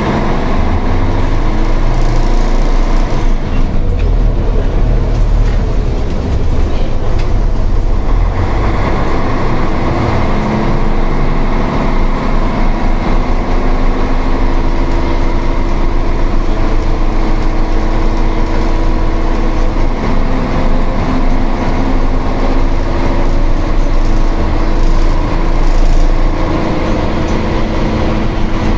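Karosa ŠM 11 city bus's diesel engine running loud and steady under way, heard from inside the cabin, with the note changing a few times as it drives, most clearly about eight seconds in.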